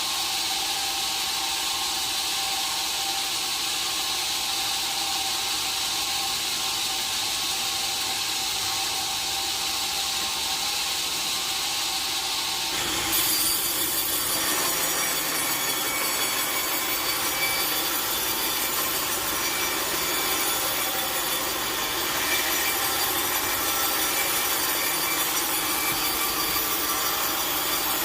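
Sawmill saw cutting lengthwise through a large log, a continuous steady sawing sound. About halfway through it gets louder and brighter.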